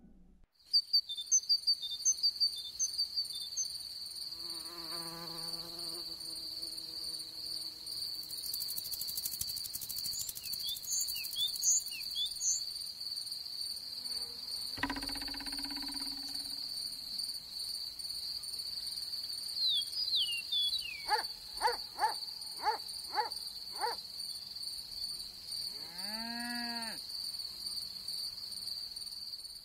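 A cricket trilling steadily and high in a continuous, evenly pulsing song, starting about half a second in. A few brief chirps, rising calls and a short rustling burst sound over it.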